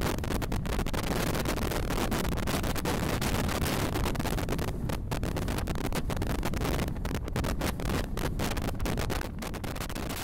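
Wind rushing over a microphone held out of a moving passenger train's window, mixed with the train's running noise: a steady noise broken by brief dips, a little quieter near the end.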